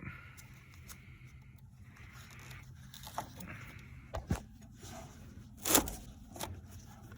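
Scraping, clicking and knocking of an old car battery being worked loose and lifted out of its tray, with the loudest knock about two-thirds of the way through.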